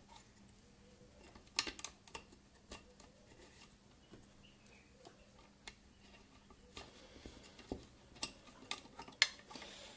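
Scattered light clicks and taps of small parts and screws being handled against a plastic mixer housing during reassembly, in two clusters, about two seconds in and again near the end.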